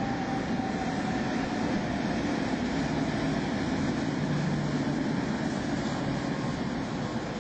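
Tatra T3 tram running past along its street track: a steady rumble of wheels on the rails and motors, with a faint whine near the start.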